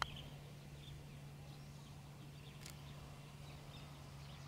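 Faint outdoor quiet with a steady low hum and scattered faint bird chirps. A soft click at the very start, a putter striking a golf ball, and a second brief click a little before three seconds in.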